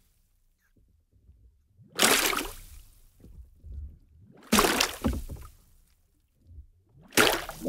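Water sloshing and splashing in three surges a couple of seconds apart, each starting sharply and fading away.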